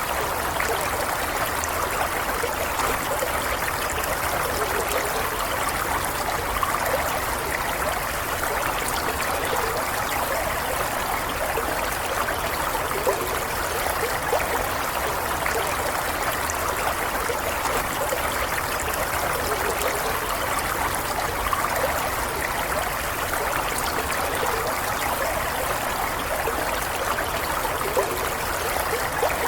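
Stream water flowing steadily over rocks, a continuous trickling, gurgling rush.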